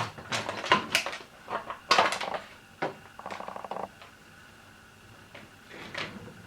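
Clicks and knocks of hard plastic fan-housing parts being handled during disassembly, with a short whir of a small electric screwdriver about three seconds in.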